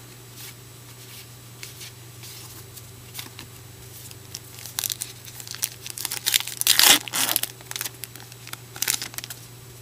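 Foil trading-card pack wrapper being torn open and crinkled: a run of short rustling, tearing bursts starting about halfway in, loudest in the middle of the run, over a steady low hum.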